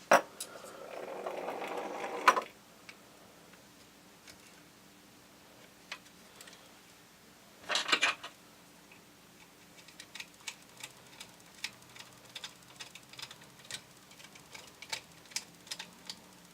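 Plastic housing parts of a Sears SR2000 electric typewriter being handled and fitted back on: a scraping rustle over the first couple of seconds, a clatter about eight seconds in, then scattered light clicks and taps.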